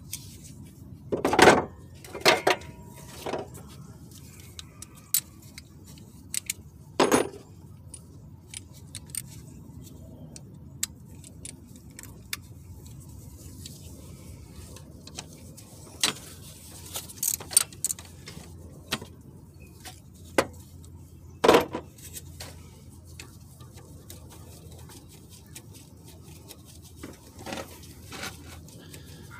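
Hand tools clinking and clanking against metal engine parts during repair work: irregular light ticks and clicks with a few louder clanks scattered among them.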